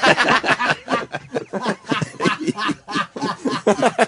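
A group of men laughing hard together, in quick repeated snickers and chuckles.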